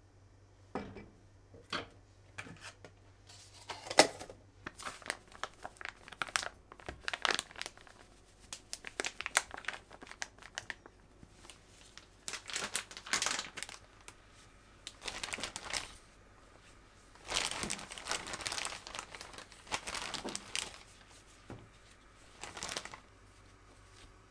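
Crinkling and rustling of something being handled by hand, in irregular bursts separated by short pauses, with one sharper crackle about four seconds in.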